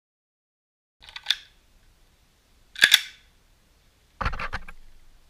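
Three short bursts of clicking and knocking close to the camera, about a second, three seconds and four seconds in; the last is the loudest, a sharp knock with a dull thud that fades quickly.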